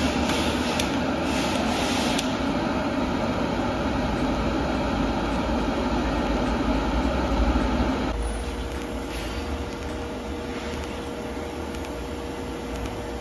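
TIG welding arc from a Taiwan Power TIG-200ADP inverter welder running on DC with pulse switched on, in 2T mode, over a steady mechanical hum. About eight seconds in the noise drops and a single steady tone is heard.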